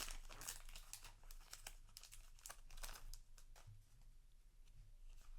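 A Yu-Gi-Oh! booster pack's foil wrapper crinkling and tearing as it is opened by hand, a dense run of crackles for about three seconds that then thins out and fades.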